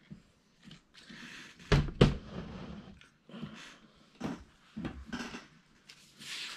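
Plastic Lego pieces and a part-built Technic model being handled on a table: two sharp knocks about two seconds in, then scattered clicks and short rustles.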